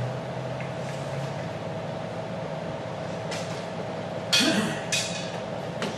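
Bible pages being turned and rustled in a few short bursts, the loudest about four seconds in, over a steady faint hum.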